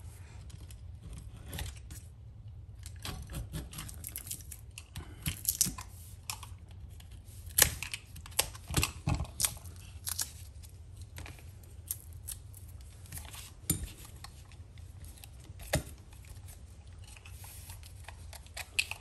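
Utility knife blade scraping and picking at the bare metal tang of an old knife: a string of irregular short scrapes and clicks over a steady low hum.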